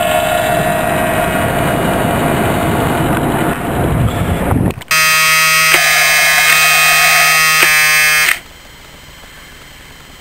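A radio-controlled model boat's motor running over the water, a whining hum with wash noise. After a sudden break, a steady buzzing drone is picked up close on board, which cuts off abruptly near the end, leaving only a low hiss.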